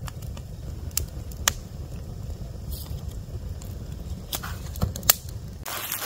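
Freshly lit campfire of dry straw and kindling burning in a steel fire ring: a low steady rush of flame with sharp crackles and pops now and then.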